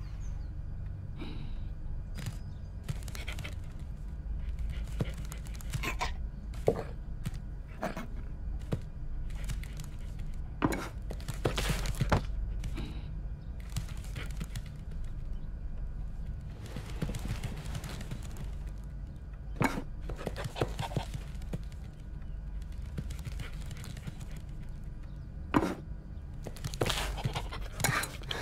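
Sound effects from an animated dog cartoon: scattered light taps and knocks over a low steady hum, with a brief hiss a little past the middle.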